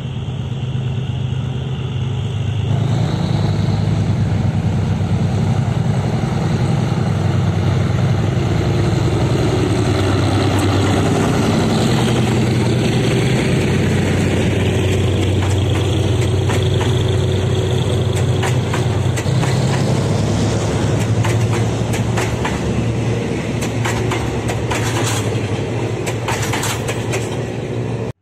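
Thai railway GE-class diesel-electric locomotive No. 4044 hauling a passenger train past at close range, its engine running loud and steady. From about halfway the carriages roll by with a run of sharp wheel clicks over the rail joints.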